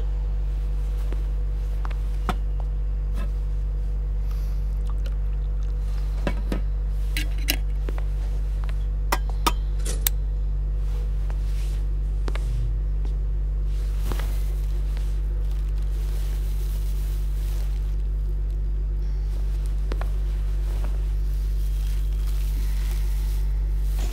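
Dishes and glassware knocking and clinking on a kitchen counter, a handful of sharp clinks in the first half. A steady low hum runs underneath, and a soft hiss comes in during the second half.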